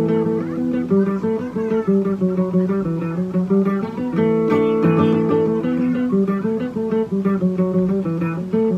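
Acoustic guitar strummed in a steady accompaniment pattern, with a man singing a slow melody of held notes over it.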